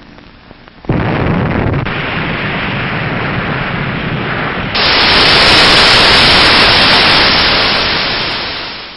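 Loud hiss of television static (white noise) starting about a second in, jumping louder about halfway through and fading out near the end.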